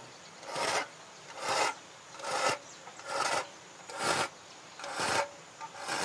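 Slow, regular rasping strokes of a hand file or rasp worked over an object, about one stroke a second, seven strokes in all.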